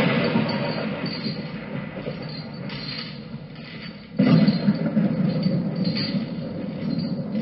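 Thunder rumbling and fading, then a sudden loud thunderclap about four seconds in that rolls on.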